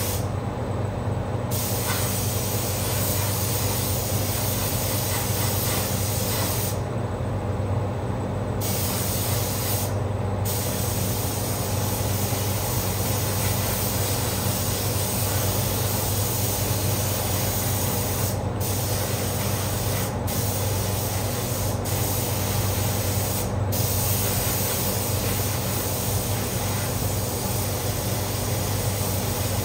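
Compressed-air paint spray gun hissing as it sprays paint, the trigger let off a few times: for about a second near the start, for about two seconds some seven seconds in, then in several short breaks. Beneath it, the steady low hum of the paint booth's exhaust fan.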